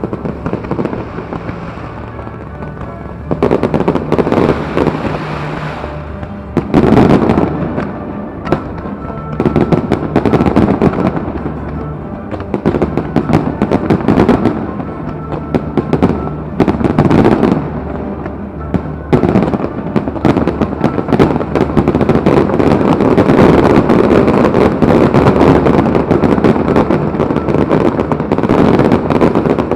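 Fireworks display: shells and rockets bursting in quick succession, thickening into a near-continuous barrage in the last ten seconds or so. Show music plays underneath.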